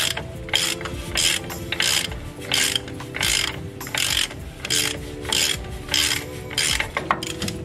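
Hand ratchet wrench clicking in a steady rhythm as its handle is swung back and forth, about one stroke every two-thirds of a second, driving a fastener on a truck's front steering knuckle.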